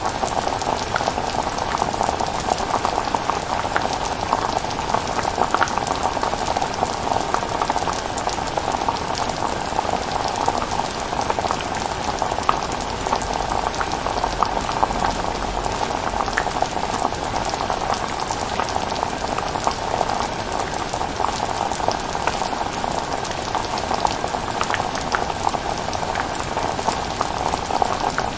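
Chilli cooking on the heat: a steady bubbling with many small pops.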